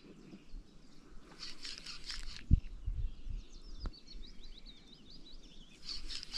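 Small songbirds chirping and twittering in quick short notes, with two brief rustling noises and a single sharp knock.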